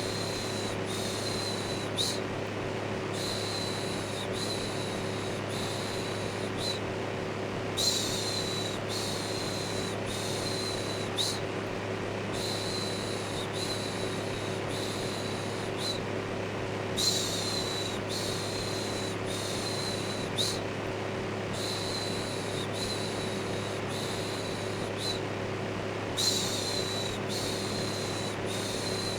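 Electric fan running steadily with a low hum, overlaid with a looped 'shhh' shushing sound. The shushing comes in a run of short strokes that repeats about every nine seconds.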